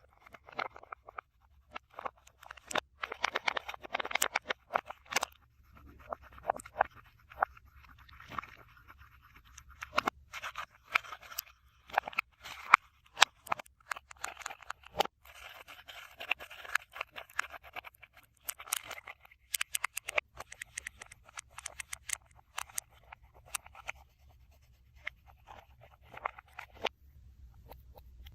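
Close-up scraping, tapping and crackling of slime and its containers being handled and mixed, in irregular short bursts with sharp clicks throughout.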